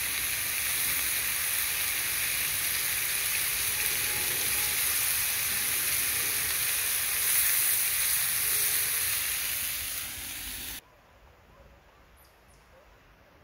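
Lamb chops sizzling on a hot flat stone slab over a wood fire: a steady, loud frying hiss. It cuts off suddenly near the end, leaving only faint ticks.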